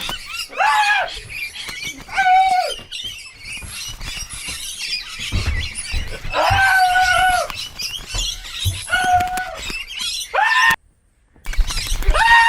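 A series of loud squawking calls, each under a second long with a rising-then-falling pitch, about five of them a second or more apart.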